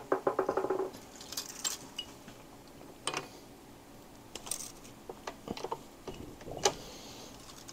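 Small metal engine parts and tools clinking and tapping as they are handled: a quick rattling run of ringing clicks in the first second, then scattered single clicks and taps.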